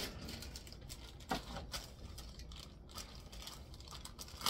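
Faint scattered small clicks and knocks of kitchen handling, with a couple of sharper ones about one and a half and three seconds in.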